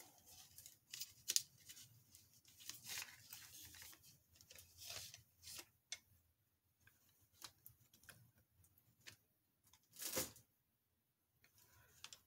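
Small packaging being handled and opened: a run of crinkles, clicks and tearing, busiest over the first six seconds, with one louder rustle about ten seconds in.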